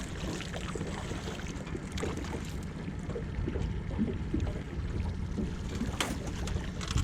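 Steady low rumble of wind and water noise around a small fishing boat, with faint scattered ticks and a single sharp knock about six seconds in.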